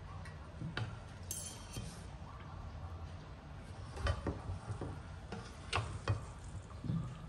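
A metal fork clinking against a brass plate as noodles are piled onto it: a scattering of sharp clinks, the loudest about four and six seconds in.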